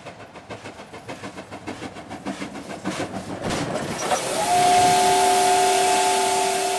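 Steam locomotive chuffing at about three beats a second and growing louder. A little past halfway its whistle comes in, a steady chord of several notes over a loud hiss of steam.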